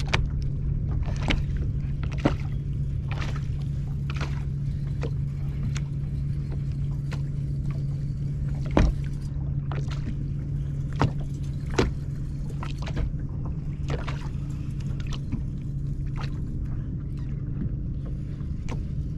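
Steady low hum of a bass boat's bow-mounted electric trolling motor, with irregular knocks and slaps of small waves against the hull.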